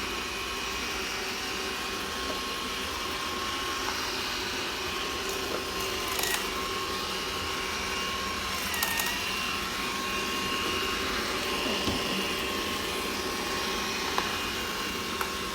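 Roborock S6 Pure robot vacuum running: a steady motor whine over fan hiss, the whine dipping in pitch briefly twice, about six and nine seconds in, with a few faint ticks.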